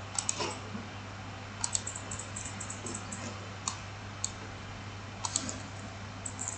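Scattered clicks of a computer mouse and keyboard, some single and some in quick clusters, over a steady low hum.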